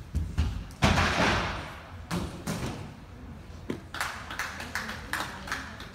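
Thuds and knocks on a wooden gymnastics balance beam as a gymnast moves along it. The loudest is a heavy thud about a second in that echoes through the hall, followed by scattered sharper knocks and a quick run of taps in the last two seconds.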